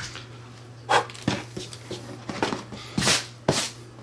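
Handling noise from a rifle stock being picked up and cleared of drill shavings: a series of about six short knocks, rubs and puffs spread over four seconds, over a steady low hum.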